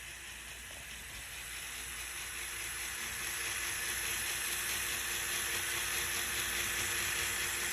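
Small electric motor and plastic gearing of a Lego Technic crane running steadily as the boom extends: an even whirring hiss with a faint steady whine that grows gradually louder.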